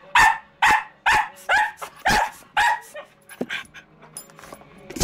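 Patterdale terrier puppy barking repeatedly, about two barks a second, with the barks growing weaker and more scattered after about three seconds.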